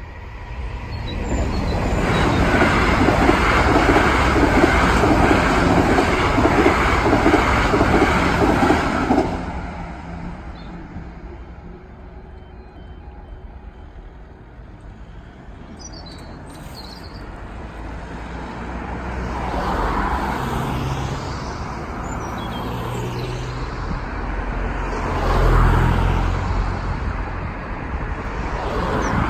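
Class 444 Desiro electric train passing through at speed, loud for about eight seconds and then fading away. Later, road vehicles drive over the crossing, the loudest one near the end.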